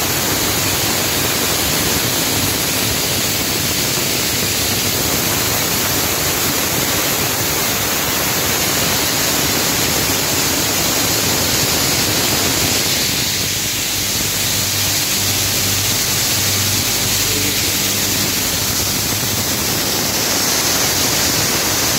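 Belt-driven machinery with an electric motor running: a steady, loud, even noise with no clear rhythm, and a faint low hum rising briefly about two-thirds of the way through.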